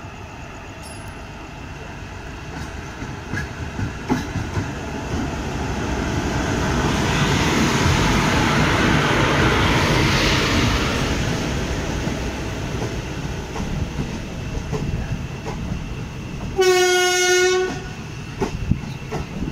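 A train hauled by an Indian Railways WAP4 electric locomotive passing close by: the rumble and wheel clatter build to a peak midway and then ease off. Near the end comes one electric locomotive horn blast lasting about a second.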